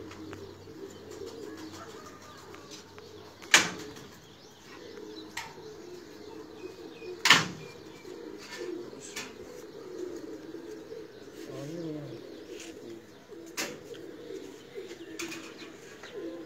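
Domestic pigeons cooing steadily in a wire-mesh loft as they are handled and caught. A few sharp claps stand out, the loudest about a third of the way in.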